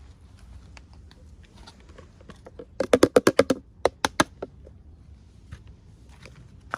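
Hands handling miniature-toy packaging: soft scattered rustles and clicks, then a quick run of about eight sharp clicks a little under three seconds in, and a few more about a second later.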